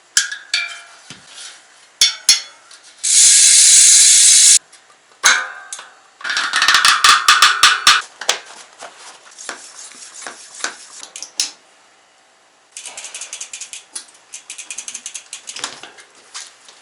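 Novatec Diablo hub's freehub ratchet clicking as the wheel freewheels. Scattered clicks, then two loud stretches of fast, continuous buzzing a few seconds in, and a softer run of rapid clicks near the end.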